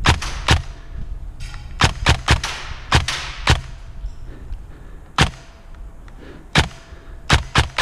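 Airsoft guns firing single shots, about a dozen sharp cracks at irregular intervals, some in quick pairs and triplets, over a steady low rumble.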